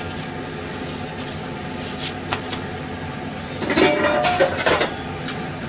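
Kitchen handling noise: a short burst of rustling and clattering about two-thirds of the way in, as a plastic tray of sliced pork is set down on the counter, over a steady background hum.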